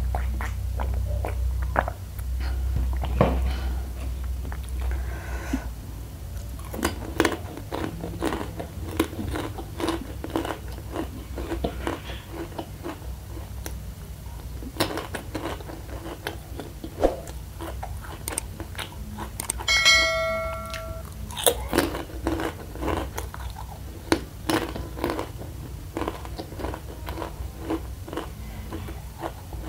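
Close-miked chewing and crunching of crispy fried spicy macaroni, with many short crisp crunches, after a drink is swallowed at the start. A brief ringing tone sounds about twenty seconds in, over a steady low hum.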